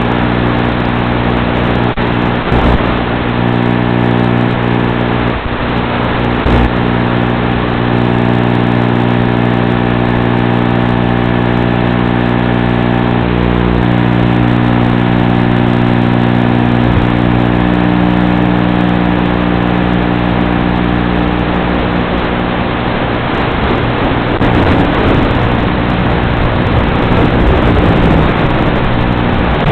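Steady electrical buzz with many fixed overtones in the audio of an analog FPV video recording. It keeps the same pitch whether the quad's motors are stopped or spinning, so it is interference in the recording and not the motors. A grainier hiss rises over it for a few seconds near the end.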